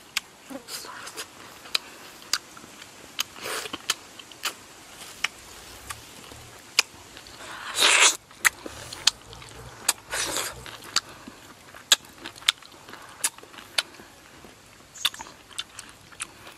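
Mouth sounds of a person eating soft ripe fruit: scattered lip smacks and wet clicks, with a few short louder slurps about three and a half, eight and ten seconds in.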